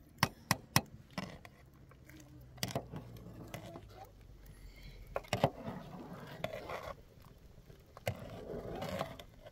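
Metal ladle stirring soup in a large metal pot, scraping and knocking against the pot: three quick knocks in the first second, then a few more single knocks spread through the rest.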